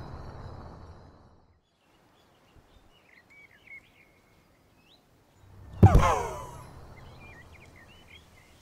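Transition sound effect: about six seconds in, a sudden hit with a ringing tone that falls in pitch over a low hum, all fading away over about two seconds. Before it, the tail of a similar hit dies out in the first second and a half. Faint bird chirps sound in the quiet stretches.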